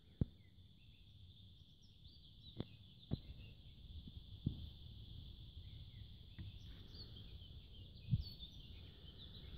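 Faint open-air mountain ambience: a steady high-pitched drone with a few short bird chirps over it, broken by several brief low thumps, the loudest a moment after the start.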